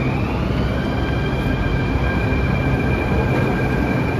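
Delhi Metro train pulling out of the station. Its electric motors give a whine that rises at the start and then settles into several steady high tones, over the low rumble of the cars.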